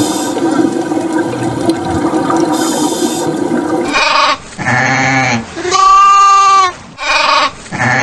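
A steady rushing noise for about four seconds, then a run of separate bleating animal calls, each under a second long and rising then falling in pitch.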